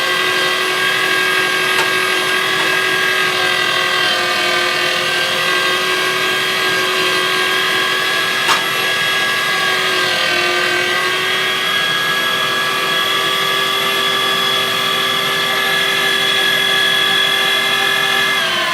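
Weston #12 electric meat grinder's 750-watt motor running steadily with a whine while grinding venison through the coarse plate, its pitch shifting slightly a couple of times as the load changes. One short click about eight and a half seconds in.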